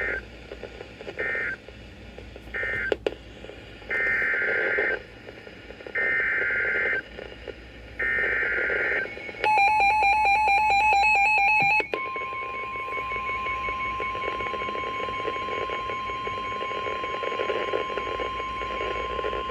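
NOAA Weather Radio alert signalling from a Reecom weather alert receiver. Three short buzzy data bursts close the tornado warning, then three longer data-burst headers about two seconds apart announce a new severe thunderstorm warning. The receiver then gives about two seconds of rapid electronic beeping, followed by the steady single-pitch warning alert tone held for about eight seconds.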